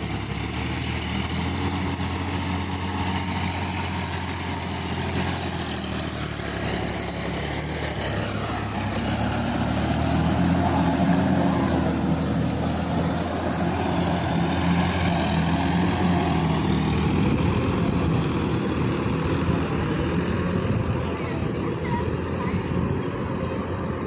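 Sonalika DI-50 RX tractor's three-cylinder diesel engine running steadily as the tractor pulls through deep mud, getting louder about ten seconds in.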